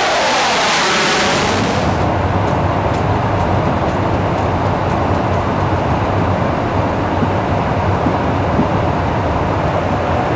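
F-16 jet engine roaring as the fighter flies past close overhead, with a whoosh that sweeps in pitch as it passes. About two seconds in this cuts to a steady low drone of aircraft noise inside an aerial refueling tanker.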